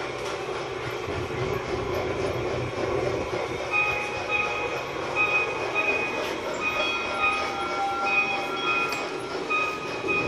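G scale model steam train running along its track with a steady rolling rumble of wheels and motor. From about four seconds in, a run of short, repeated high tones sounds over it.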